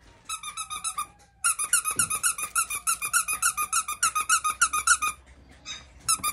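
Squeaky toy squeaking over and over in quick succession, about eight squeaks a second, as a chihuahua puppy chews it; the squeaking breaks off briefly about a second in, stops about five seconds in, and comes back for a few squeaks near the end.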